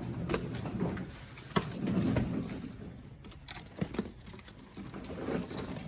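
Cardboard cases and packaged merchandise being handled: rustling with scattered light knocks and clicks.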